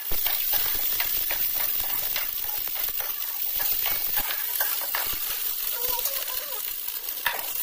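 Green peas sizzling in a metal wok while a metal spatula stirs them, with frequent light clicks and scrapes of the spatula against the pan over a steady sizzle.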